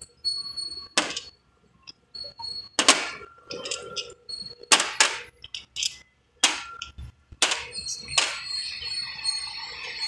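Small glass bottles clinking and knocking as they are lifted off the metal rack of a vial washer and set down on a stainless steel table: a dozen or so sharp, irregular clinks, some with a brief ring.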